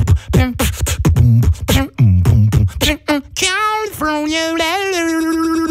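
Human beatboxing: a fast run of mouth-made kick and snare hits with pitched bass sounds, then a long held vocal note that bends and then holds steady for the last couple of seconds.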